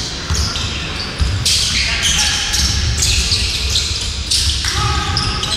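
Basketball game sound in a large sports hall: a ball being dribbled on the wooden court, with voices echoing in the hall.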